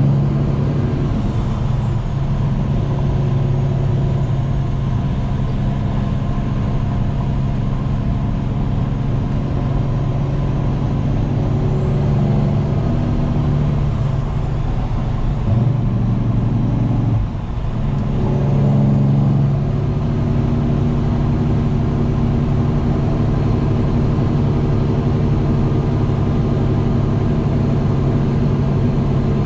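Straight-piped Peterbilt 389's diesel engine pulling steadily under way, heard from inside the cab as a loud, deep drone. The engine note dips briefly a little past the middle and then picks up again. A faint high turbo whistle rises and falls a few times over it.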